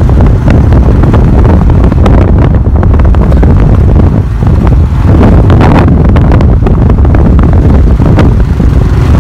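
Heavy wind buffeting the microphone: a loud, steady low rumble with ragged gusts.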